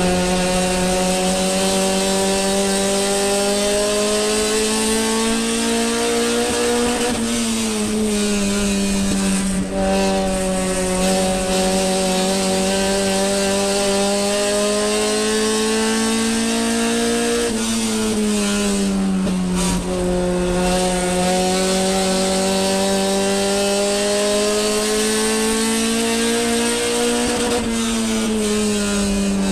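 Onboard sound of a sport compact race car's engine at racing speed, heard from inside the car with steady wind and road noise. The engine note climbs slowly along each straight and drops sharply three times, about every ten seconds, as the car lifts off for the turns of the short oval.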